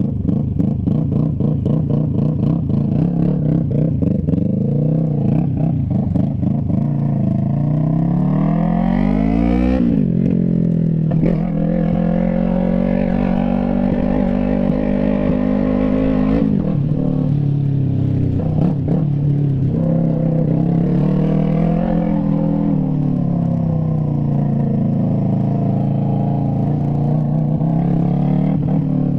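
Yamaha MT-03's parallel-twin engine running through a straight pipe with the muffler removed, being ridden and accelerated through the gears. The pitch climbs steadily to a peak about ten seconds in and drops sharply at the shift. It climbs again and drops about sixteen seconds in, then rises and falls more gently while cruising.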